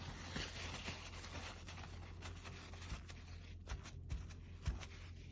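Faint scratching of a watercolour brush on copy paper, with a few light taps scattered through, over a steady low hum.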